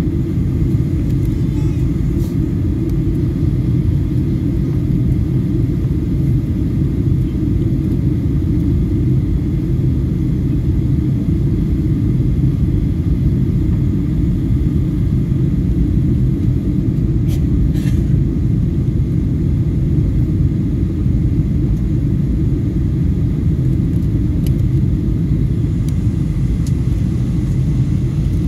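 Steady low rumble inside the cabin of a Boeing 737-800 in flight: its CFM56-7B jet engines and the airflow over the fuselage, heard as an even drone.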